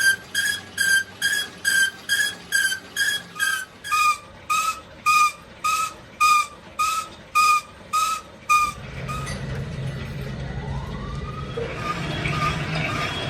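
A pitched electronic beep repeating about twice a second, stopping about nine seconds in; then a steady low machine hum sets in, with a rising whine as something spins up.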